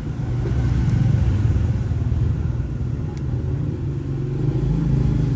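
Low, steady rumble of a motor vehicle's engine, swelling about a second in and again near the end, with a few faint clicks over it.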